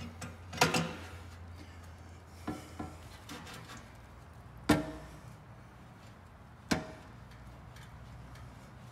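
Sharp metal knocks and clinks as a chrome slip-on muffler and its mounting hardware are handled and seated on the hanger bracket. There are a few scattered knocks, and the loudest, about halfway through, and another near the end ring briefly.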